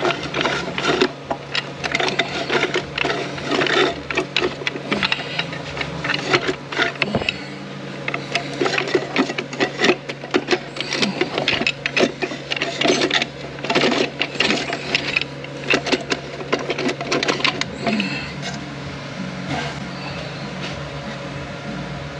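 Quick, irregular metallic clicking and rattling from clutch plates, a drum and the input shaft inside a Ford 10R80 automatic transmission case as they are worked by hand onto their splines. The clatter thins out near the end, over a steady low hum.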